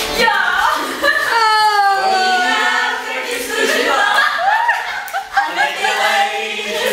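Several voices singing together without instruments, with long held notes that slide in pitch.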